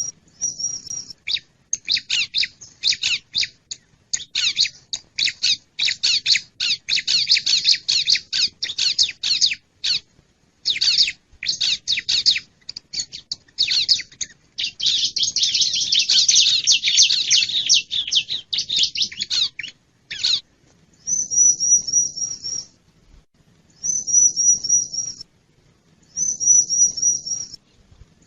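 Bar-winged prinia (ciblek) calls from a bird-lure recording: a long stretch of fast, scratchy chattering, then, from about 21 s on, short runs of rapid high repeated notes every two seconds or so.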